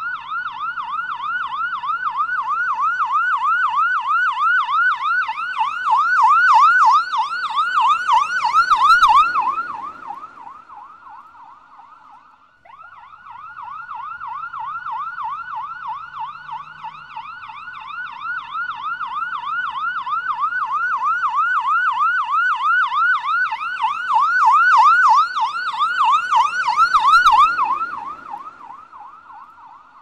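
Police car siren in a fast 'waw waw waw' yelp, rising and falling in pitch about three to four times a second. It swells louder and fades away, then starts again about halfway through and does the same, fading out near the end.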